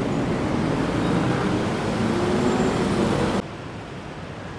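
Busy road traffic, the steady mixed noise of car and motorbike engines on a multi-lane street below. About three and a half seconds in it cuts off abruptly to the quieter, low background hum of a large station concourse.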